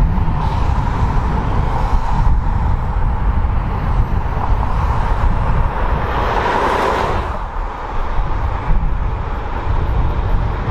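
Low rumble of heavy road traffic, with a faint steady high tone underneath. A vehicle passes close by about six to seven seconds in, swelling loud and then fading.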